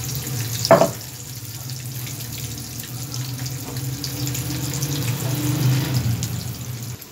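Puris deep-frying in hot oil in a frying pan, a steady sizzle and bubble of the oil over a steady low hum. A short, louder clunk comes about a second in.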